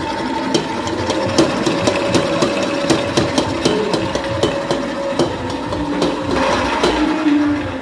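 Stand mixer running with a steady whine, its beater clacking in the stainless steel bowl about three times a second as it churns ice cream frozen with liquid nitrogen.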